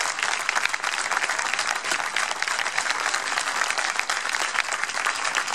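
Crowd applauding: a steady, dense patter of many hands clapping.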